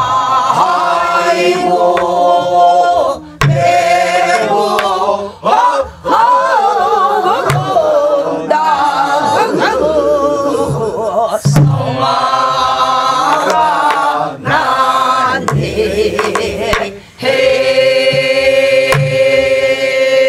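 Several voices singing a Korean Namdo folk song (minyo) together in long phrases, the pitch wavering with deep vibrato. Low strokes on buk barrel drums mark the beat every second or two.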